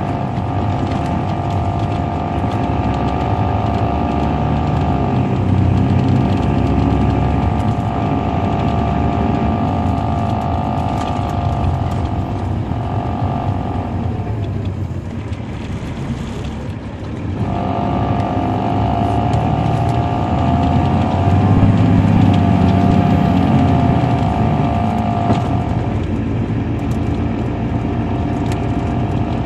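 Caterpillar C13 diesel engine of a 2007 MCI D4500CL coach running under way, heard from on board: a steady low engine rumble with a high whine over it. Just past the middle the whine and the engine note fall away for about three seconds, then come back.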